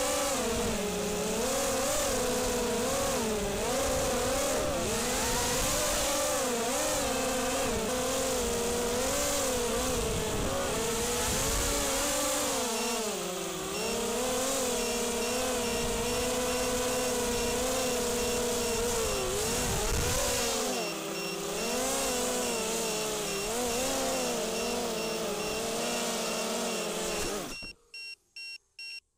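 ZMR250 racing quadcopter's four 2204 2300 kV brushless motors spinning 5045 props, a buzzing whine whose pitch rises and falls with the throttle, with wind rush on the onboard camera's microphone. Near the end the motors stop abruptly and a quick, regular electronic beeping follows.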